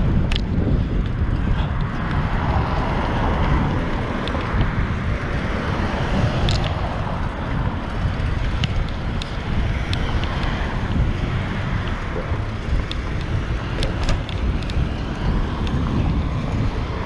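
Steady wind rumble on the microphone of a camera riding on a moving fixed-gear bicycle, with a few faint, sharp clicks here and there.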